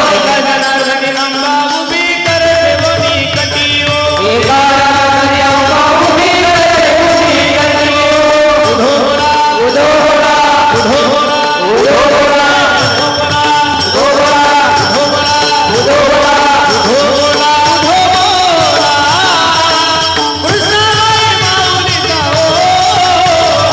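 Devotional kirtan music: a Marathi gondhal song with melodic singing over its accompaniment, continuous throughout.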